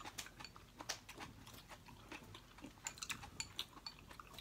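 Faint eating sounds: scattered small clicks of chopsticks against a bowl, with chewing.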